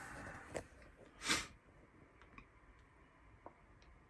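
Faint handling noise from a handheld camera: a few small clicks and one short rush of noise just over a second in, the rest near quiet.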